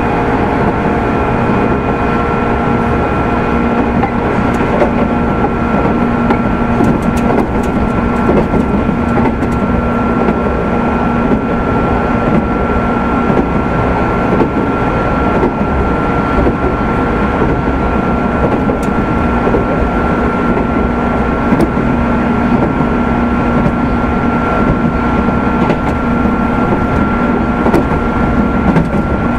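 JR 205 series 600-subseries EMU motor car MoHa 204-602, which carries traction motors with external cooling fans, running at a steady speed. A steady high whine sits over the motor and rail noise.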